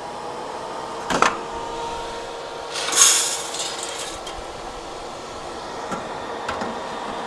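Freshly roasted coffee beans poured from the BeanGo Cube X's drop tray into a metal bowl: a brief rattling rush about three seconds in, the loudest sound, after a click as the tray is pulled out about a second in. A steady hum from the roaster runs underneath, with a few light knocks as the tray is handled near the end.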